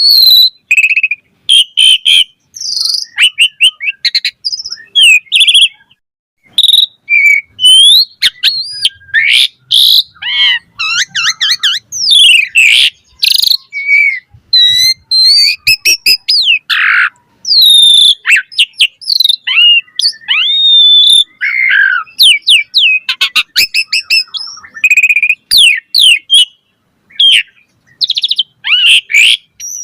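Asian pied starling (jalak suren) in full song: a fast, ever-changing run of clear whistles, gliding notes, rapid trills and harsh chirps with short pauses between phrases. Much of it is mimicked song material.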